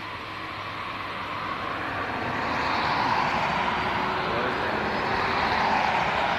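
Twin-engine jet airliner's engines running as it rolls along the runway: a broad rushing noise with a faint high whine, growing louder over the first few seconds and then holding steady.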